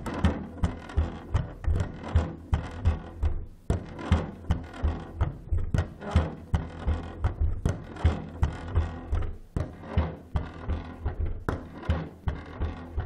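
Plastic cat flap being swung by hand, clacking against its frame over and over in a steady rhythm of about two to three knocks a second.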